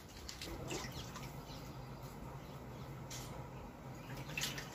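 Hand-milking of a water buffalo: faint jets of milk squirting into a steel pail in uneven strokes, over a steady low hum, with a couple of short bird chirps.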